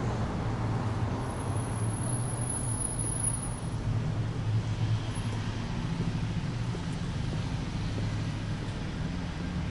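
Steady low rumble of city traffic, with no distinct events.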